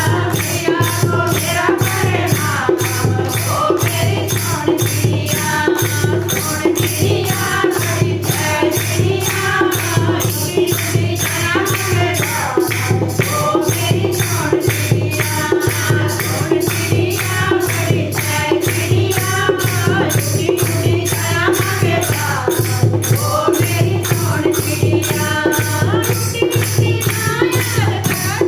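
A group of voices singing a Hindi devotional bhajan in kirtan style. Beneath them is a steady low drone, and a jingling percussion beat of about three strokes a second keeps time.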